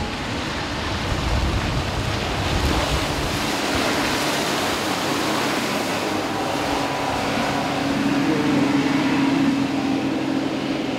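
Twin Mercury outboard motors on a rigid inflatable boat running at speed, a steady engine drone under the rush of spray and wind on the microphone; the engine hum grows stronger in the second half.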